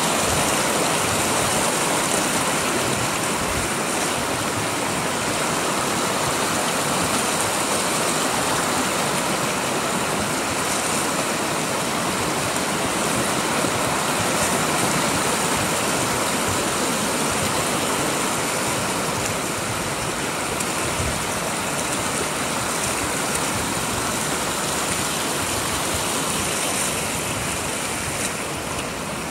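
River water rushing and splashing over shallow rock ledges in small rapids, a steady rushing noise that eases slightly near the end.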